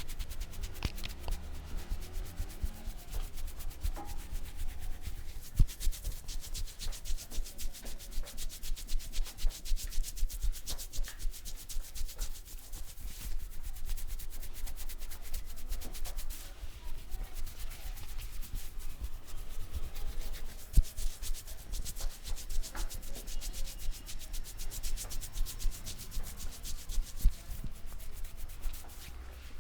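Hands vigorously rubbing and scrubbing a person's hair and scalp during a head massage: a rapid, dry, crackly rubbing with quick rhythmic strokes.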